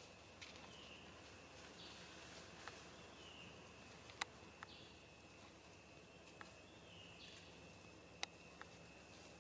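Faint outdoor insect drone made of two steady high tones, with a short chirp repeating every couple of seconds. Two sharp clicks, about four seconds in and near the end, are the loudest sounds.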